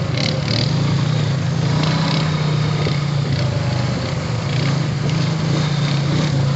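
Honda Rancher ATV engine running at a steady, moderate pace while riding along a dirt trail, with a little rattle and tyre noise over the engine.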